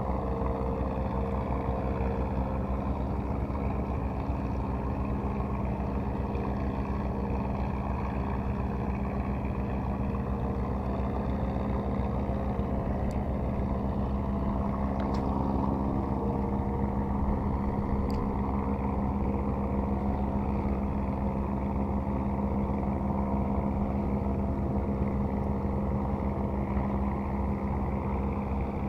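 Engine running steadily at a constant speed, a continuous low drone.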